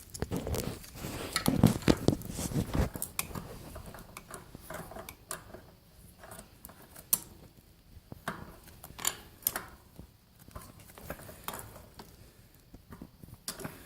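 Irregular light metal clinks, clicks and scrapes of hand assembly work on an air compressor, as small fittings such as its intake mufflers are turned and set with hands and tools.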